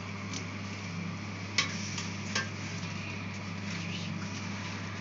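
A doll and sponge being handled over a bathroom sink: two sharp knocks about a second apart near the middle, over a steady hiss and low hum.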